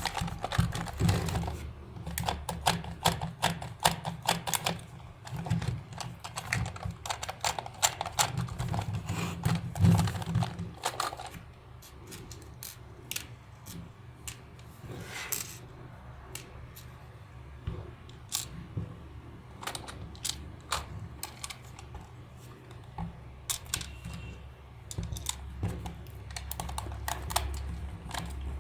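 Rapid irregular clicking and tapping of small hard objects over a low steady hum; the clicks are dense at first and thin out after about eleven seconds.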